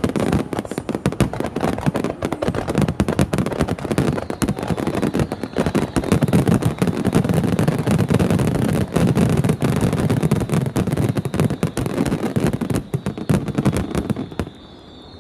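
A dense, continuous barrage of starmine fireworks bursting, with rapid overlapping bangs and crackles over a deep rumble. It stops abruptly about a second before the end.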